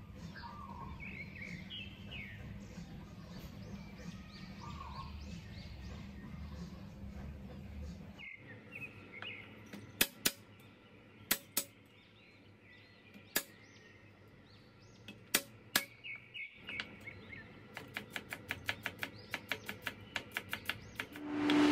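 Birds chirping over a low steady hum, then a chef's knife on a wooden cutting board: a few separate cuts through garlic cloves, then a fast run of chopping at about four or five strokes a second as the garlic is minced.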